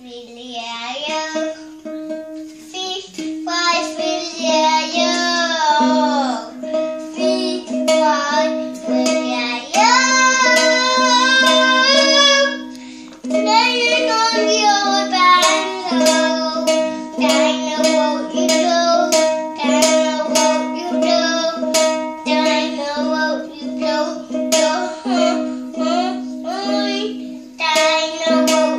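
A small ukulele strummed by a toddler, the same open strings ringing over and over without any chord changes, about one or two strokes a second, while a young child sings along tunelessly.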